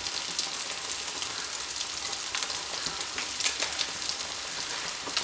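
Spice-coated sardines sizzling in hot oil in a frying pan: a steady hiss with scattered crackling pops. The fish are fully fried.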